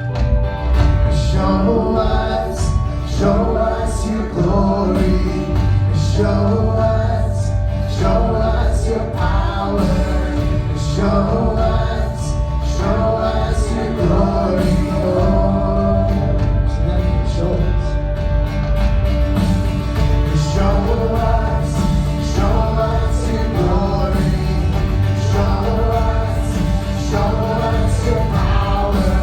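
Gospel worship song with group singing over a full band with steady bass, coming in fuller about at the start.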